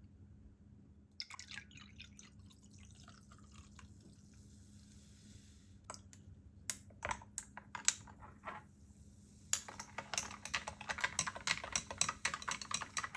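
Carbonated ginger ale fizzing in a glass: a few sharp clinks midway, then from about ten seconds in a dense crackle of bursting bubbles.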